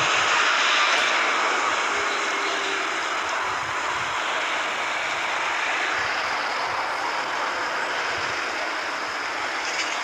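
Steady hiss-like din of a busy covered market, with no single sound standing out and no clear voices.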